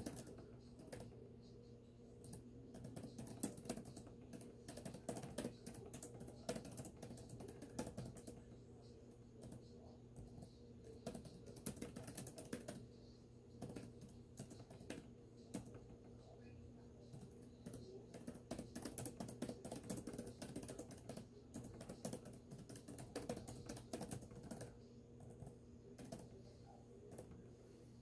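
Typing on a laptop keyboard: runs of quick key clicks in bursts with short pauses, thinning out and stopping near the end, over a faint steady low hum.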